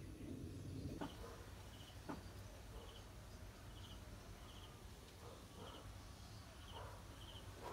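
Faint, short, high chirps of an insect, repeating steadily a little more than once a second over a low hum, with two light clicks in the first couple of seconds.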